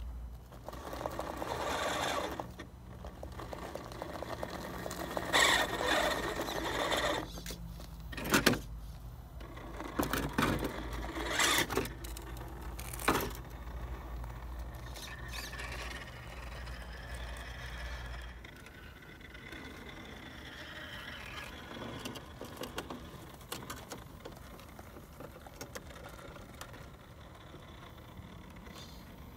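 Redcat Gen8 Scout II RC crawler's Hobbywing AXE brushless motor and geared drivetrain whirring in short bursts as the truck crawls over rock, with tyres scraping and a few sharp knocks of the chassis and wheels against stone.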